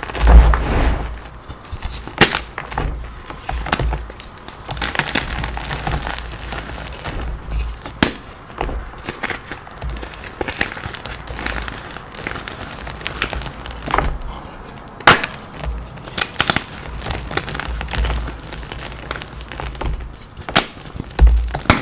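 Hands crushing and crumbling blocks of dyed gym chalk: repeated crisp crunches and snaps of the chalk breaking apart, over dull low thumps.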